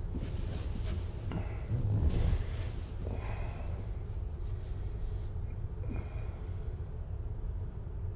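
A person breathing hard, several loud breaths in a row, the loudest about two seconds in, over a steady low rumble.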